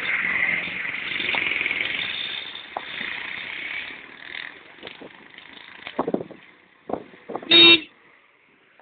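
A motor vehicle running close by, fading away over the first few seconds. A short, loud horn toot comes about seven and a half seconds in, with a few knocks just before it.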